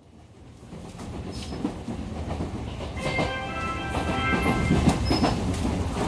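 JR West 223 series electric train running, heard from inside the car: a steady low rumble with wheels clacking over rail joints. About halfway through a steady high whine joins in.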